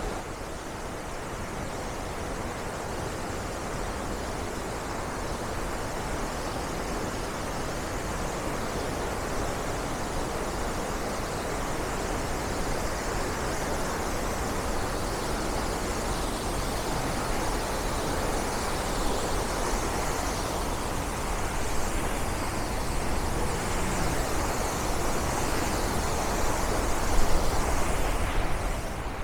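Waterfall in heavy flood: a steady, dense rush of falling water that slowly grows a little louder.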